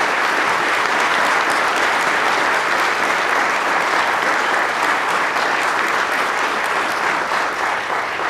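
A congregation applauding: many people clapping steadily, fading out just as it ends.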